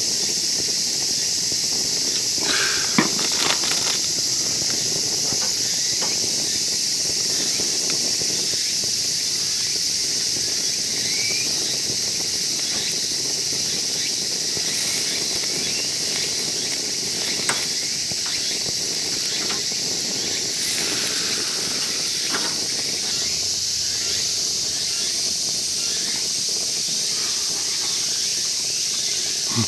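Steady high-pitched droning of insects, with a few isolated clicks.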